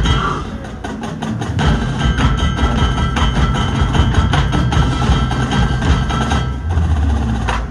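High school marching band playing its field show: a percussion-heavy passage of rapid strikes with mallet percussion ringing over a low rumble.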